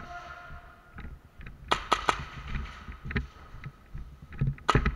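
Airsoft guns firing in an indoor course: sharp cracks in quick groups, three in a row about two seconds in and a loud pair near the end, with single cracks between.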